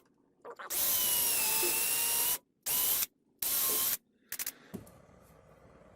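Electric hand drill boring through a golf ball: one long run of about a second and a half, then two short bursts on the trigger, the motor whine sagging a little under load.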